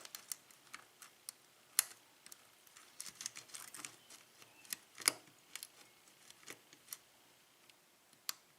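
Lock pick and tension wrench working the pins of a six-pin Kwikset cylinder lock during single-pin picking: small irregular clicks and light scrapes, with sharper clicks about two seconds in and about five seconds in.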